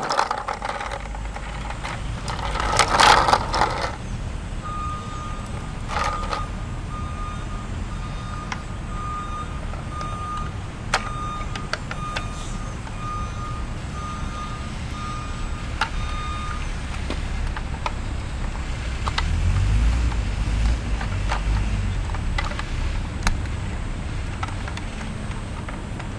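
Garbage truck sounds: a diesel engine runs with a steady low rumble, a loud hiss comes about three seconds in, then a back-up alarm beeps steadily about once a second for some twelve seconds. The engine swells louder near the end, and a few sharp clicks fall in between.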